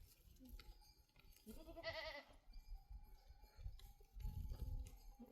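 A goat bleats once about two seconds in, a single wavering call just under a second long, over a faint low rumble.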